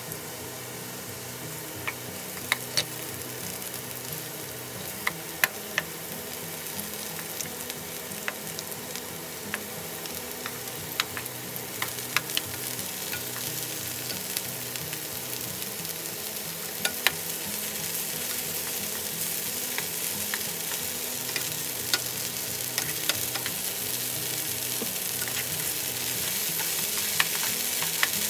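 Beech mushrooms frying in oil in a nonstick pan while being stirred with wooden spatulas. There is a steady sizzle that grows gradually louder, with sharp clicks scattered throughout.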